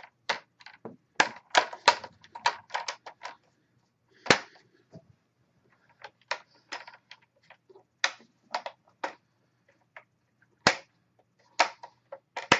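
Plastic screen bezel clips of a Dell Latitude E6530 laptop being pressed and snapped into place: an irregular run of sharp clicks and snaps, some in quick clusters.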